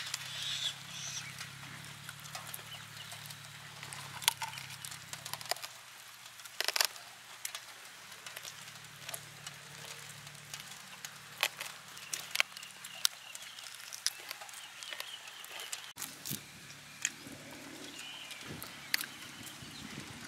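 Close-up eating sounds: smoked rabbit being chewed and torn off the bone, with many sharp irregular clicks and smacks. Faint bird calls sound in the background.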